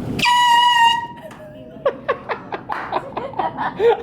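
A canned air horn taped under an office chair goes off as the seat is sat on: one loud, steady honk about a second long that cuts off suddenly. People then laugh in quick bursts.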